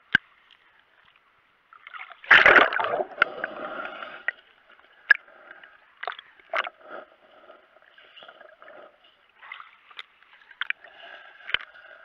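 Shallow sea water splashing and sloshing around a camera held at the water line, with one loud splash about two seconds in, then choppy lapping and gurgling broken by sharp clicks as the camera dips under the surface.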